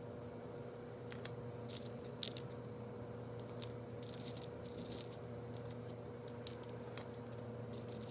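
Small seashells clicking and clinking against each other and the potting mix as they are placed by hand around a potted succulent, in scattered clicks and a few short clusters, over a steady low hum.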